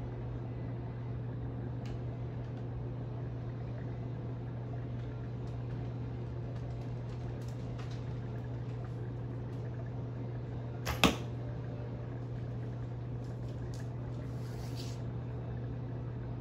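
A single recurve bow shot, with a sharp snap of the bowstring on release about two-thirds of the way through. A steady low hum runs underneath.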